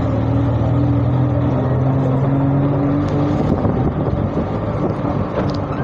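Small motor vehicle's engine running at a steady pitch while driving, over rushing road noise; the engine note fades briefly about three and a half seconds in, then returns.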